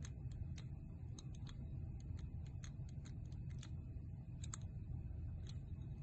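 Number wheels of a Rhino combination padlock clicking as they are rolled one number at a time, with the shackle held under tension to feel for the true gates. The sharp, faint ticks come irregularly, about three to four a second.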